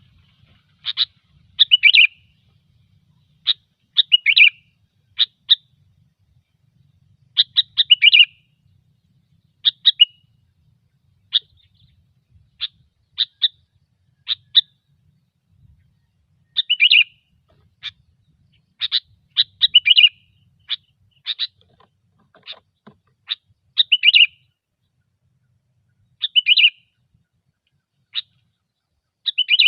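Sooty-headed bulbul (kutilang) calling over and over: short, sharp chirps, some single and some in quick runs of two to four, with gaps of a second or two between them.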